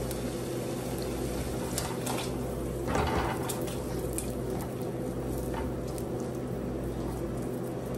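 Diced raw salmon being scraped off a plastic cutting board into a pot of hot water: soft scrapes and light taps, the loudest about three seconds in, over a steady low hum.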